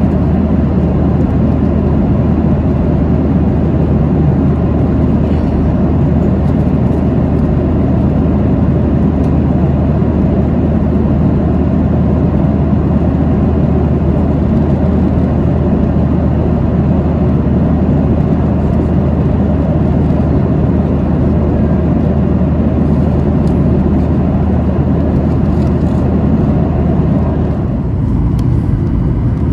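Steady engine and airflow noise inside the cabin of a Boeing 737-800 in flight, its CFM56-7B turbofans giving a constant low hum under the rushing air. A couple of seconds before the end, the sound shifts abruptly and the low hum changes.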